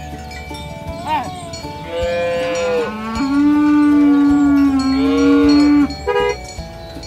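A cow mooing: one long, loud moo of about four seconds in the middle, with a short call about a second in and another brief one near the end.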